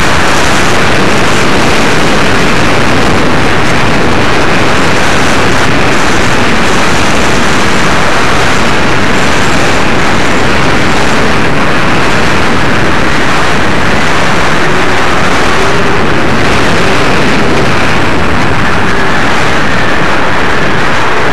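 Wind rush and the electric motor and propeller of an Apprentice S15e RC trainer plane in flight, heard through the plane's own onboard camera microphone: a very loud, steady, unbroken roar with a faint hum under it.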